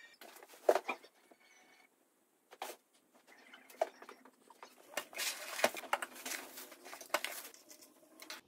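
Handling noise from unpacking: irregular rustling of plastic packaging with sharp clicks and taps of the lamp parts, busiest about five to seven and a half seconds in.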